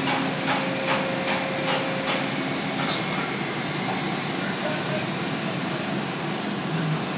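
Steady factory machinery noise, with a run of about five evenly spaced light clicks in the first two seconds and one more about a second later.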